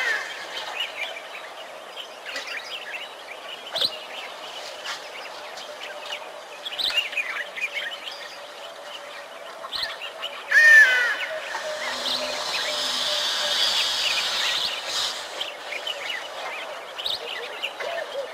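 Wild birds chirping and calling in short sloping notes, with one louder call about ten seconds in, over a faint steady hum.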